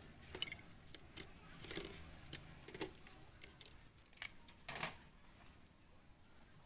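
Light, scattered clicks and knocks of metal TV chassis parts and screws being handled, about seven of them spread over several seconds, the one near five seconds a little longer.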